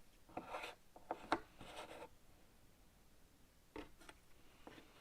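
Cardboard jigsaw puzzle pieces handled and slid across a table: a few brief, faint rubbing scrapes and a light click.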